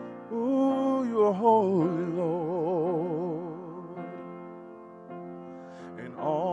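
A man singing a wordless line, gliding at first and then holding long notes with a wide vibrato, over steady sustained keyboard chords.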